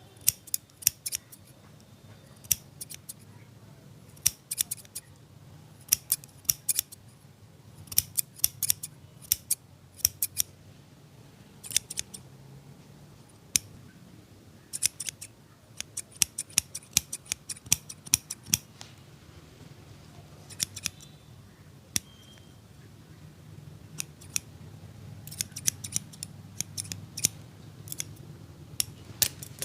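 Barber's scissors snipping hair in quick runs of several sharp snips, with short pauses between runs, over a low steady hum.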